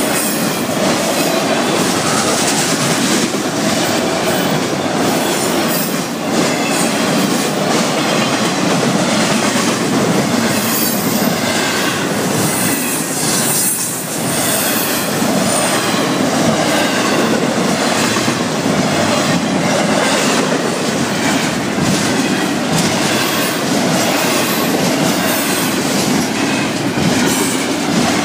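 Florida East Coast Railway freight train cars rolling past: a steady, loud rumble of steel wheels on rail, with rapid clacking as the wheels cross rail joints.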